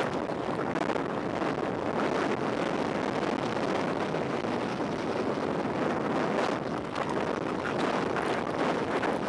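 Wind rushing over a sunglasses-camera microphone on a fast downhill bicycle descent: a steady rush with a few crackles.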